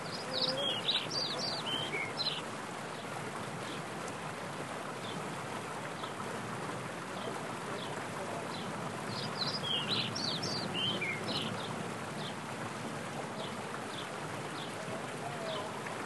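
Mountain stream rushing steadily over boulders, with a songbird singing a quick burst of high notes near the start and again about nine seconds in, plus a few single chirps between.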